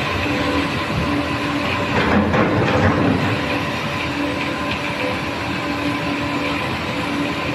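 Concrete mixer machine running steadily, a continuous mechanical noise with a steady hum. About two seconds in, a louder rattling surge lasts roughly a second.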